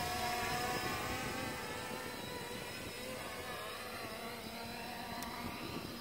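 Quadcopter drone's propellers and motors whirring as it flies in and descends toward the ground, the pitch shifting as the throttle changes.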